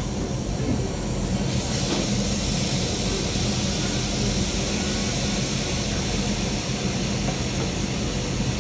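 Lamb and bean sprouts sizzling on a domed jingisukan grill pan: a steady frying hiss that grows louder about a second and a half in, over a steady low hum.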